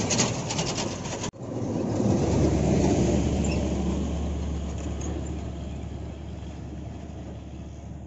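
Truck going past on a rough stone road, its body rattling and clattering. About a second in the sound breaks off abruptly, and a low steady engine drone with road rumble swells and then slowly fades away.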